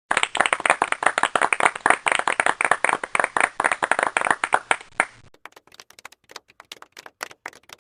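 Applause from a group: dense, fast clapping for about five seconds, then thinning to a few scattered claps that die away.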